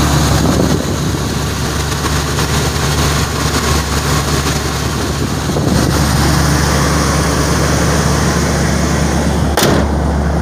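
Dodge Ram pickup's engine, fitted with a new Holley carburetor, idling steadily and smoothly with the hood open. A single sharp thump near the end as the hood is shut while the engine keeps running.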